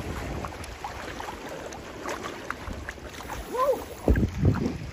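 Water sloshing and splashing around a small boat, with a short call that rises and falls in pitch about three and a half seconds in and a few low thumps just after.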